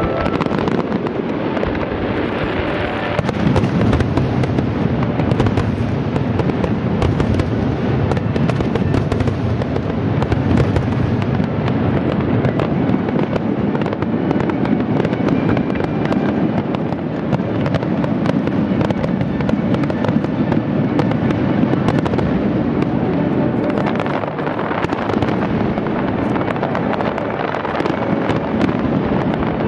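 Fireworks display: a dense, continuous barrage of aerial shell bursts, with many sharp bangs and crackles close together and no pause.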